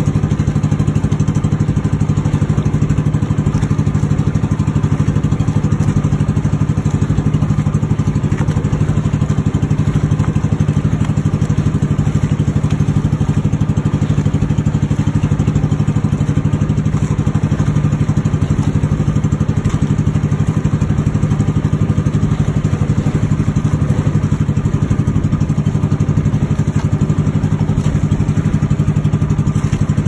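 Engine of a motorised outrigger boat (bangka) running steadily at cruising speed, an even low drone with fast regular pulsing that stays unchanged throughout.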